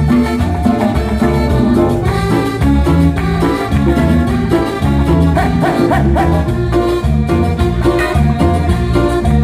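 Live cumbia band playing through a loud PA system: a steady driving bass beat under melody instruments.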